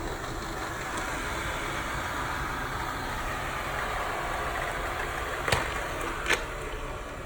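Kobot RV351 robot vacuum running over carpet, a steady motor and brush whir. Near the end come two sharp knocks less than a second apart.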